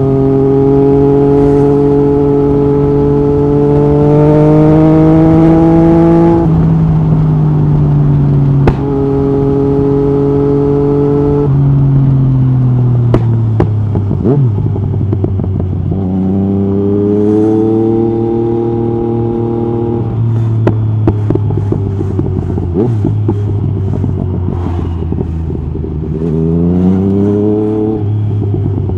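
Yamaha MT-09 SP's three-cylinder engine through an Akrapovic carbon racing exhaust with the dB killer out, revving up through two quickshifter upshifts where the pitch drops sharply about six and eleven seconds in, then the revs fall away. It pulls again, backs off with pops and crackles from the exhaust on the overrun, and revs up once more near the end.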